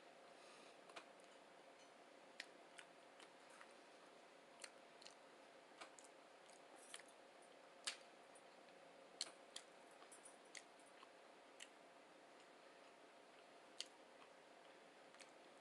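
Near silence over a faint steady hum, broken by about fifteen brief, sharp clicks at irregular intervals: wet mouth and lip clicks of someone chewing close to the microphone.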